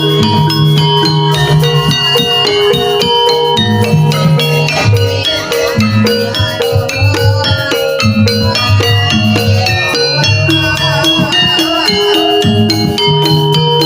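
Javanese gamelan-style music accompanying jaranan (jaran kepang): pitched metal percussion plays a steady, repeating pattern over low beats. A wavering melody line joins in about ten seconds in.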